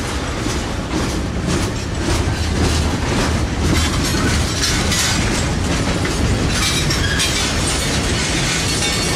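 Empty torpedo (bottle) cars and gondolas of a freight train rolling past close by: a steady rumble with the wheels clicking over the rail about twice a second, the clicks blurring into a more even noise in the second half.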